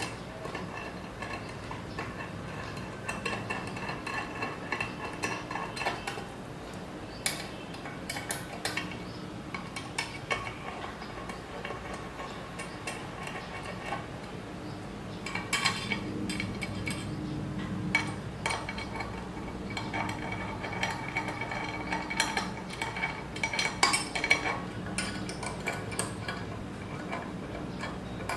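Steel CNC parts and hand tools clinking and tapping while a linear rail is fitted to the Z-axis assembly: irregular metallic clicks and clinks, busier in the second half.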